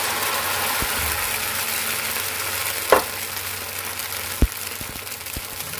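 Freshly poured poha batter sizzling in a hot oiled frying pan, a steady hiss that slowly fades. A short clink about three seconds in.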